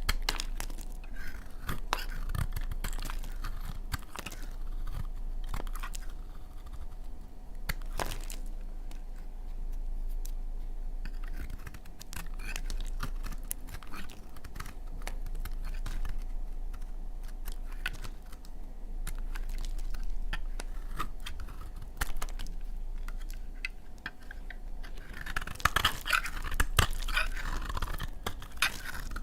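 Knife cutting through dry laundry soap: a run of crisp cracks and crumbly scraping, with a denser burst of crackling near the end.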